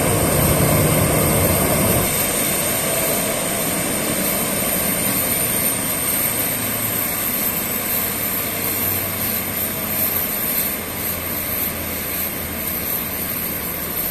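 Boeing 737 airliner's jet engines running at a steady idle, with a constant high whine over a rushing rumble that eases slightly after the first couple of seconds.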